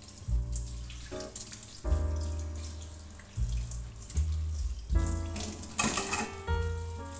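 Kitchen tap running into a stainless steel sink, the water splashing as a glass bowl is rinsed under it, with a louder splash about six seconds in. Background music with a bass line and melody notes plays over it.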